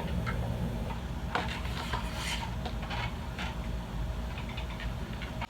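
Lighting equipment being handled during setup: rubbing and rustling with a few small clicks and knocks. A steady low hum sits underneath.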